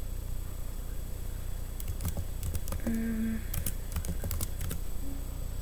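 Typing on a computer keyboard: a quick run of about a dozen keystrokes lasting nearly three seconds, starting about two seconds in.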